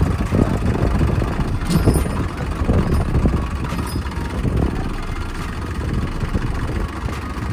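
Tractor diesel engines idling with a steady low rumble, with a couple of brief clicks about two and four seconds in.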